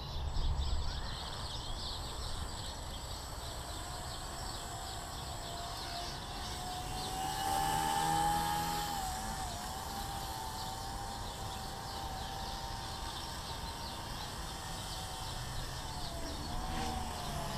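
Blade 130X micro RC helicopter in flight, its motor and rotors giving a steady whine that rises in pitch and gets louder about eight seconds in, then settles back. It is flying on after a crash that damaged its main (B) gear, and to the pilot it doesn't sound good.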